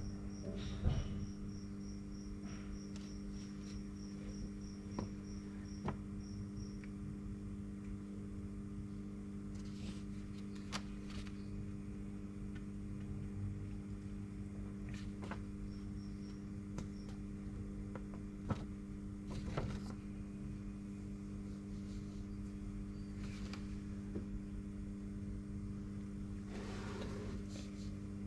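Steady electrical hum made of several even tones, with occasional crinkles and soft clicks from large paper sheets being handled. A faint high chirp repeats about twice a second for the first several seconds, then stops.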